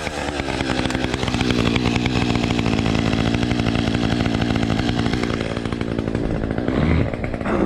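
Two-stroke chainsaw idling steadily while it warms up, with a short blip of the throttle about seven seconds in.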